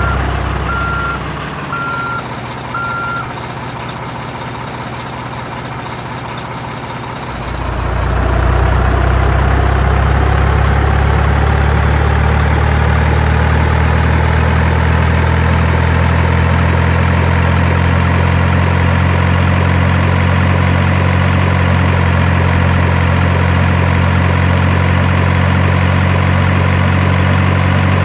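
Diesel truck engine with a reversing beeper sounding about once a second for the first few seconds. The engine drops back to a quieter idle, then revs up about seven seconds in and keeps running steadily with a slowly rising whine.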